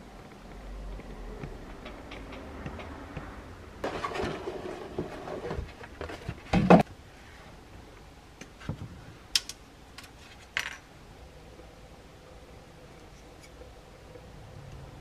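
Plastic model-kit parts handled on a cutting mat: rustling and clattering for a few seconds, with one loud knock about seven seconds in, then a couple of sharp clicks.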